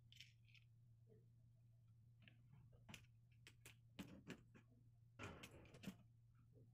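Faint, scattered clicks and a short scrape of a snap-off utility knife working at the packing tape on a cardboard carton, over a low steady hum.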